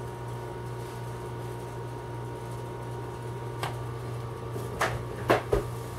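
A steady low hum with room noise, and a few light clicks and knocks in the second half from pistol parts and tools being handled on the workbench.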